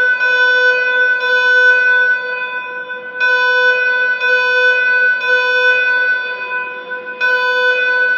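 Electronic emergency-alert alarm tone: one steady pitched tone with many overtones, held throughout and dipping slightly in level about three and seven seconds in.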